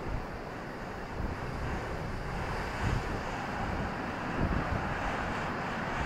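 Rough sea surf breaking and washing in over a rocky shore, a steady roar, with wind buffeting the microphone in low gusts about three and four and a half seconds in.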